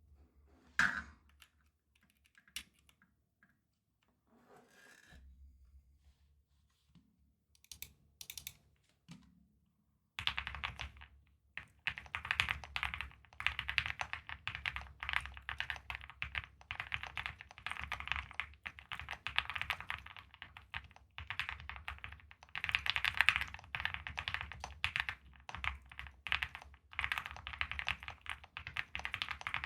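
Typing on a custom mechanical keyboard with lubed and filmed Gateron Black Ink V2 linear switches on an FR4 plate in an Owlab Starlight Spring case, with PBT keycaps. After a few scattered key clicks, fast continuous typing begins about a third of the way in.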